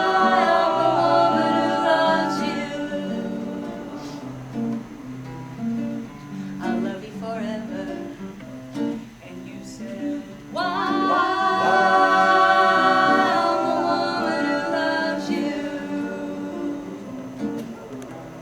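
Live acoustic guitar accompanying singing, with a long held sung note at the start and another about ten seconds in, and the guitar playing on alone between them.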